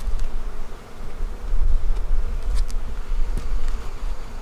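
Honeybees buzzing in a steady hum around an opened hive, over a low rumble. A few short wooden clicks come a little past halfway as a brood frame is set back down into the hive box.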